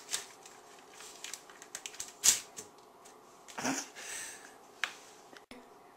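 A few sharp clicks and knocks from kitchen things being handled at an idle stand mixer with a steel bowl, the loudest a sharp click about two seconds in.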